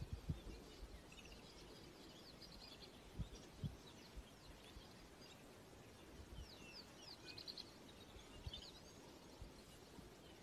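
Faint wild birds calling: scattered short chirps and quick trills over a quiet outdoor background, with a few dull low thumps near the start and about three seconds in.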